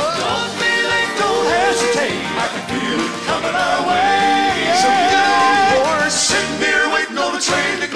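Gospel singing: male voices in harmony over instrumental accompaniment, with one long held note in the middle.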